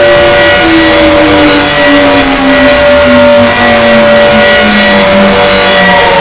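Gents of Leicester electric fire siren sounding loudly: one tone holds steady while a lower tone slowly falls in pitch.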